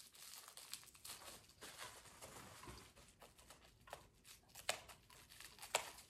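Plastic wrap being pulled off and crinkled by hand: faint, scattered crackles, with a couple of sharper crinkles late on.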